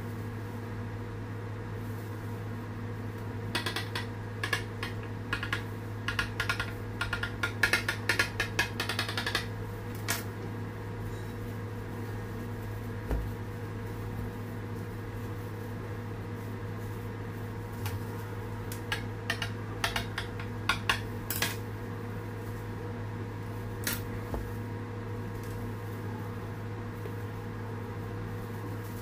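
A knife and a cardboard cake board clicking and scraping against a hard worktop while sponge cake is cut, in two clusters of short taps, over a steady low hum.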